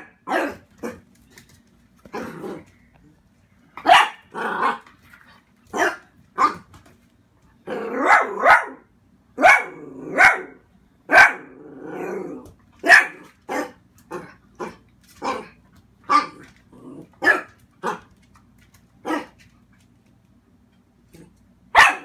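Young dachshund barking in short, sharp yaps, wary alarm barking at a new toy he treats like a snake. The barks come irregularly, one or two a second, with a gap of about two seconds near the end and one last bark.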